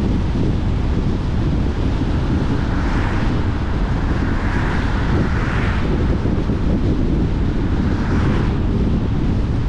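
Steady low rumble of a car driving along a wet road, with wind on the microphone. The tyre hiss swells a few times, once as an oncoming car passes about halfway through.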